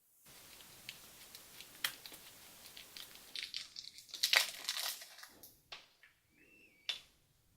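Faint crinkling and rustling of plastic toy packaging being handled and opened, in scattered short bursts with a few sharper crackles, the busiest stretch about four to five seconds in.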